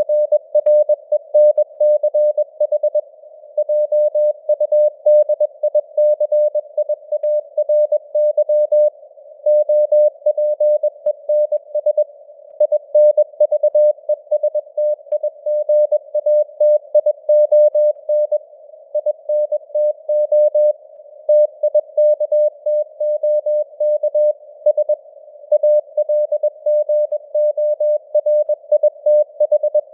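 Morse code (CW) sent at 21 words per minute: a single mid-pitched beep keyed on and off in dots and dashes with short gaps between letters and words. It plays over a narrow band of simulated radio hiss, with the signal strength fading up and down (QSB).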